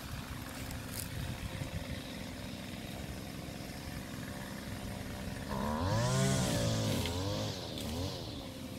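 An engine running steadily, then revving up and down in pitch for about two seconds a little past the middle.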